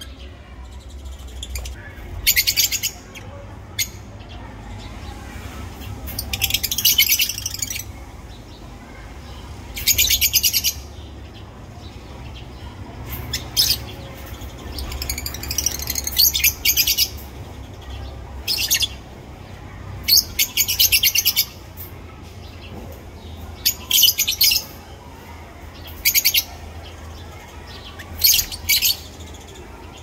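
Small parrots calling in repeated short bursts of high, rapid, chattering calls, about a dozen spread through the span, over a steady low hum.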